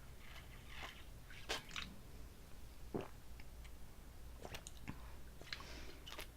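A person chewing food close to the microphone: faint wet mouth sounds with scattered short clicks and smacks.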